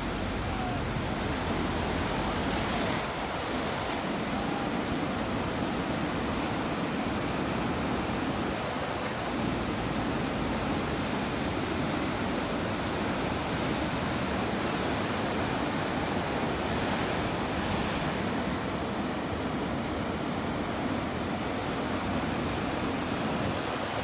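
Ocean surf breaking: a steady rush of large waves and white water.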